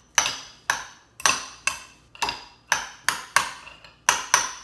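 Metal fork clinking against a bowl while mashing avocado: sharp, ringing knocks about twice a second, some ten strikes in all.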